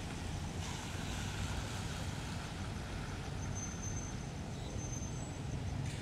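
Steady wet-road traffic: a city bus's engine running as it moves slowly across, over the hiss of car tyres on rain-soaked pavement.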